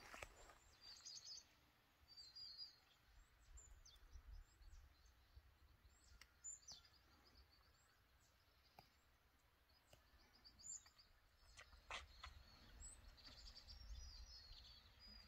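Near-quiet outdoor background with faint small-bird chirps and short high trills scattered throughout, and a few soft clicks.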